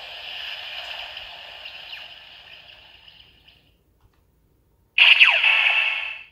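Electronic sound effects from a DX Ziku Driver toy belt's small speaker, thin and tinny, fading out over the first three and a half seconds. After about a second of silence, a sudden loud new burst of electronic sound with falling swoops.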